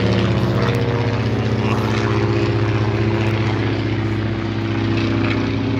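Piston engine and propeller of a biplane flying overhead, a loud steady drone with a fast even pulse.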